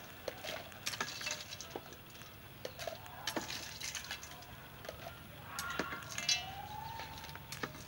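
Scattered light clinks and taps of spoons against plastic cups and a metal bowl. About two-thirds of the way in, a rooster crows once, a long call that rises slowly and holds.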